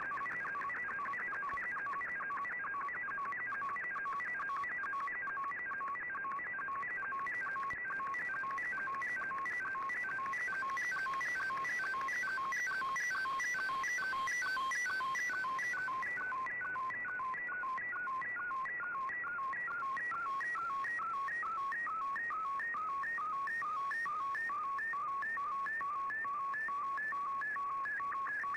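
Slow-scan television (SSTV) picture signal received over shortwave on an Icom IC-R8600: a steady warbling of tones that repeats in a fast, even beat, one sweep per scan line, as an image is sent. Light radio hiss lies under it.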